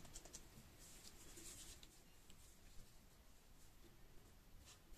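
Near silence, with faint rubbing and a few light clicks of dough and kitchen utensils being handled.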